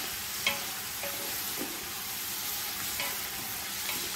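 Fenugreek leaves and chillies sizzling as they fry in oil in a large metal pot, stirred with a spatula that knocks and scrapes against the pot a few times.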